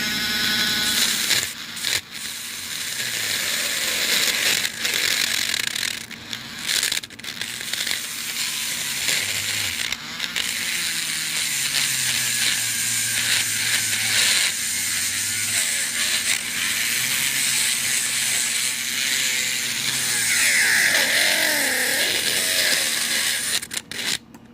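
Power drill boring into the pin chambers of a Kaba padlock core to widen the holes so the pins drop out. The motor's pitch wavers under load, and the drilling breaks off briefly several times before stopping near the end.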